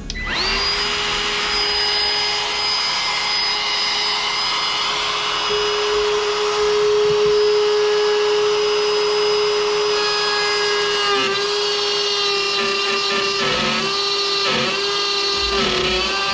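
Ryobi cordless trim router starting up and spinning up to a steady high whine. From about ten seconds in its pitch dips again and again as the bit bites into the aluminum dash panel, routing out a hole.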